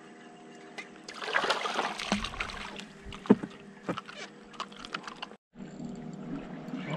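A small fish on the line splashing at the water's surface as it is reeled to the boat and lifted out, followed by a few sharp knocks, over a faint steady low hum.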